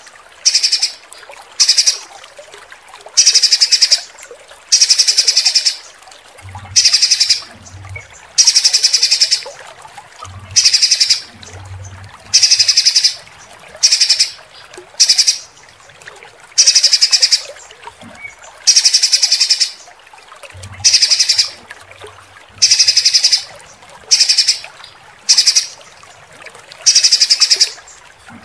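Songbird 'tembakan' calls used as mastering material for competition birds: short, harsh, high-pitched rattling trills of very rapid notes, repeated about every one to two seconds.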